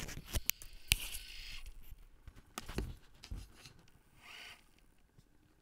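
Mechanism of a Panasonic SJ-MJ78 portable MiniDisc player, running with its lid off and a disc in: a run of small clicks with two short whirs as it tries to seek. The owner takes it to be still not seeking properly.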